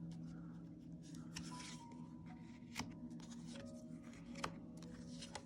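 A deck of tarot cards being shuffled and handled, with three sharp card snaps, over faint background music.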